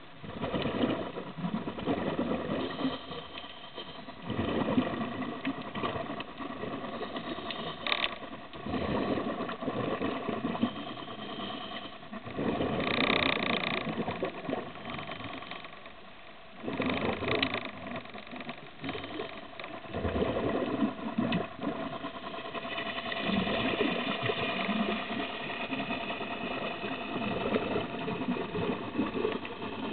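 Scuba diver's regulator heard underwater: breaths with rumbling bursts of exhaled bubbles, repeating about every four seconds, over a faint steady hum.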